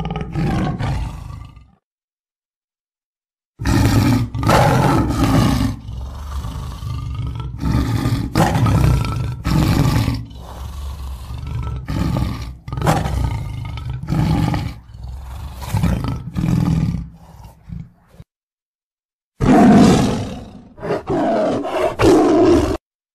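Tiger roaring: a long run of rough, low roars and growls, one after another. The sound cuts off abruptly into dead silence twice, once just after the start and once about three-quarters of the way through.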